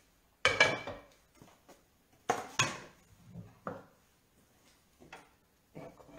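Plates being handled and set down on a gas hob, giving a few sharp knocks and clatters. The loudest comes about half a second in, two follow close together a couple of seconds later, and fainter ones come after.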